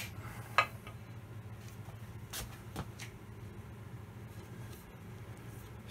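A few light clicks and knocks as a Myford lathe saddle is lifted from the milling-machine vise and handled, the sharpest about half a second in, over a steady low hum.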